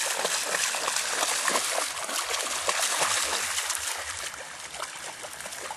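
English Springer Spaniel paddling through lake water, a steady trickling and splashing of water around it.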